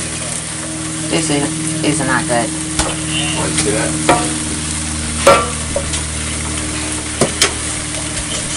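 Lo mein noodles sizzling in a square copper-coloured frying pan while being stirred and tossed with two utensils, with scrapes and several sharp knocks of the utensils on the pan, the loudest about five seconds in. A steady hum runs underneath.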